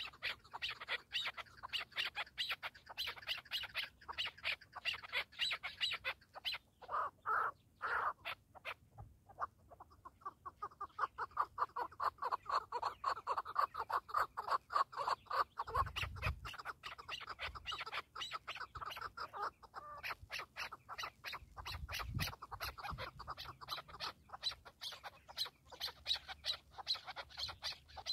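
Chukar partridges calling: a fast, continuous series of repeated clucking notes that thins out briefly about a third of the way in, then picks up again.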